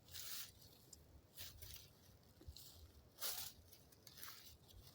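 Faint rustling and scuffing from handling, in about five short bursts.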